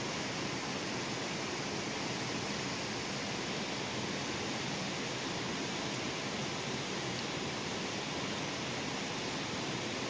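Mountain river rushing over rocks: a steady, even rush of water with no breaks.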